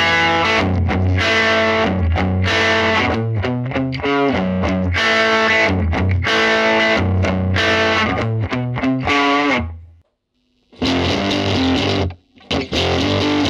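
Electric guitar played through a Marshall JTM1C 1-watt all-valve combo amp, strummed chords overdriven by turning up the volume, since the amp has no gain channel. Near the end the playing stops briefly, then resumes with heavier distortion at a high-gain setting.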